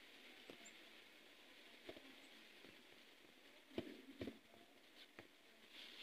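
Near silence: a faint steady hiss with a handful of soft, scattered clicks, the loudest pair a little under four seconds in.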